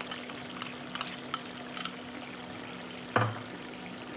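Raw chicken pieces and curd sizzling in hot oil in a pan, over a low steady hum. A few light clicks in the first two seconds, and one sharp knock about three seconds in.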